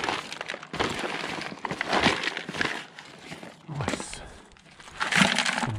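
Rummaging through scrap and debris: several bursts of crinkling, rustling and clattering, full of small clicks.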